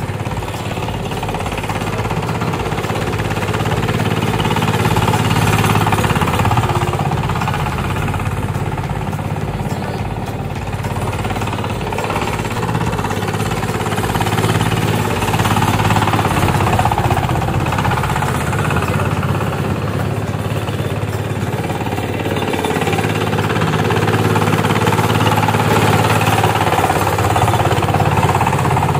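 Diesel engine of a homemade boat-shaped paddy tractor running hard under load as it ploughs through wet paddy mud, a steady rapid pounding. The engine's sound swells and eases a few times.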